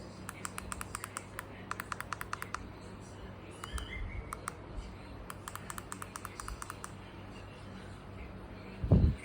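Quick runs of light, sharp clicks, several a second, over a steady low hum, with one loud thud near the end.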